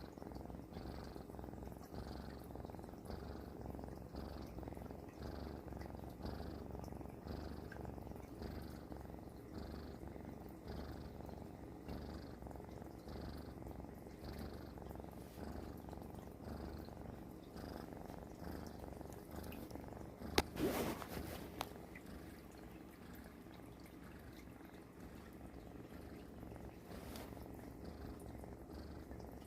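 Domestic cat purring in a slow, even rhythm of about one breath a second, a snore-like purr. A brief louder noise breaks in about two-thirds of the way through, and the purr is fainter for a few seconds after it.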